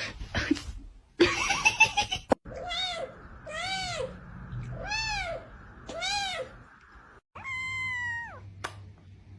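A cat meowing: four short meows about a second apart, each rising and falling in pitch, then a longer meow that drops in pitch at its end.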